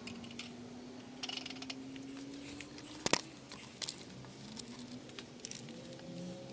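Scattered small clicks and handling noises, with one sharp click about three seconds in, over a faint hum that rises slightly in pitch and fades about halfway through.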